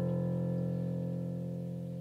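A piano chord held and slowly fading away, with no new notes struck.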